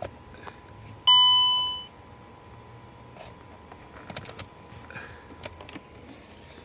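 Mercedes-Benz W204 C-Class dashboard warning chime: a single loud ding about a second in, fading out in under a second, then a few faint clicks. The ignition comes on but the car will not crank, because the electronic steering lock has failed.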